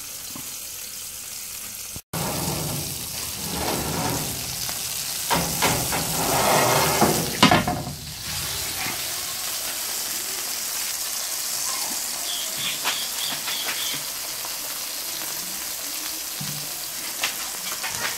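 Steak frying in a ridged cast iron skillet: a steady sizzling hiss of hot fat. There are a few brief knocks and clatters around the middle.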